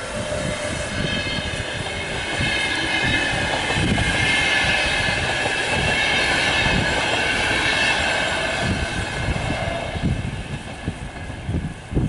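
A VR Class Sr2 electric locomotive and its double-deck InterCity carriages running past at close range: a dense rumble of wheels on the rails with repeated low knocks, and a high, several-toned squeal in the middle. It gets quieter near the end as the last car goes by.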